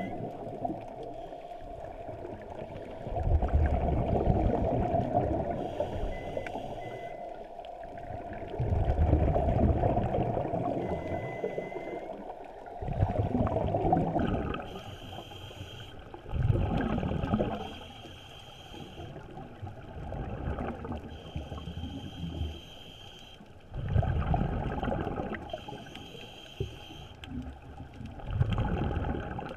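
Scuba regulator breathing heard underwater through a camera housing. Hissing inhalations alternate with gurgling surges of exhaled bubbles every few seconds.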